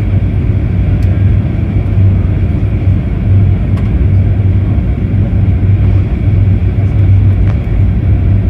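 Boeing 737-800 cabin noise on approach: a steady low rumble of the engines and rushing air heard from inside the cabin.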